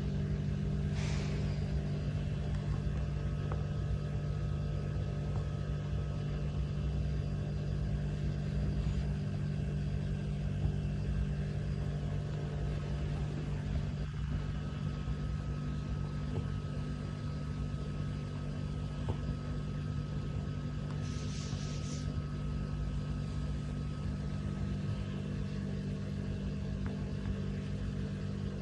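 A steady low hum, even throughout, with two brief soft hisses, one about a second in and one later on.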